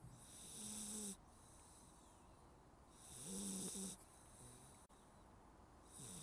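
Labrador retriever puppy snoring, about one snore every three seconds, three in all. Each snore is a short low tone with a breathy hiss above it.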